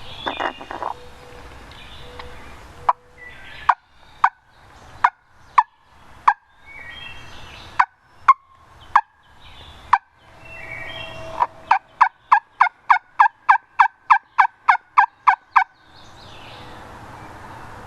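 Hand-blown turkey call yelping to draw in a gobbler: a slow series of sharp single yelps about one every two-thirds of a second, then a faster run of about four yelps a second that stops about two seconds before the end. A brief louder burst comes right at the start.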